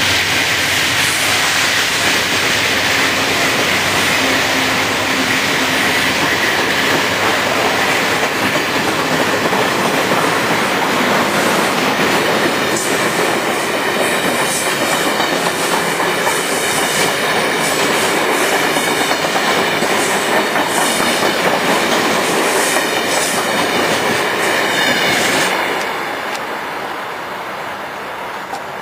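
An Amtrak passenger train's stainless-steel cars roll past close by as the train leaves the station: a steady rumble and rush of steel wheels on rail, with quick clickety-clack over the rail joints from about halfway through. Near the end the sound drops to a quieter, more distant rumble.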